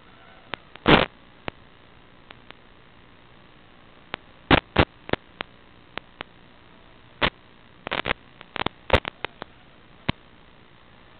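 Static from an analog FPV video receiver's recording: a steady low hiss broken by irregular sharp crackles and pops, with the loudest pop about a second in and clusters of them in the middle and later part.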